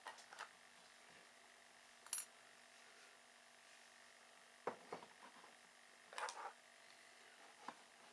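Near silence with a steady low hum, broken by a few short, faint clicks and rustles of small objects being handled.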